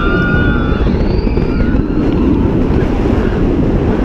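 Wind rushing hard over the microphone on a B&M wing coaster mid-ride, with the train's rumble underneath. Riders scream in long, held cries during the first second or two.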